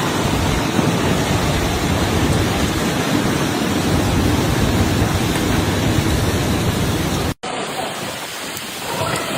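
Heavy storm rain pouring down with wind, a steady dense rush of noise. It cuts out for an instant about seven seconds in and comes back quieter.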